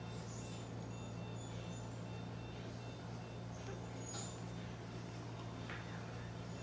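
A steady low hum runs through, with a few faint brief ticks over it.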